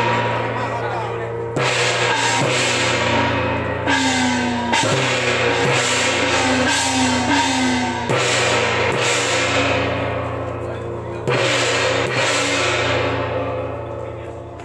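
Chinese temple-procession gong-and-cymbal percussion: cymbals and gongs crashed together about five times at irregular intervals of a few seconds. Each crash rings on with tones that waver in pitch, and the ringing dies away over the last few seconds.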